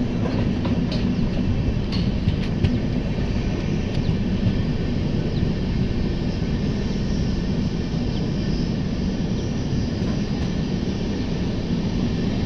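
Passenger express train running at speed, heard from alongside a coach: a steady rumble of wheels on rail, with a few sharp clicks about one to three seconds in.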